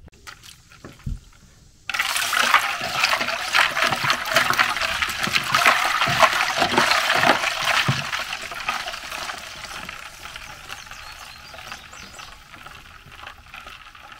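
Ice water in a 5-gallon plastic cooler being stirred by hand: water sloshing and splashing with loose ice knocking about, starting suddenly about two seconds in and dying down over the last few seconds.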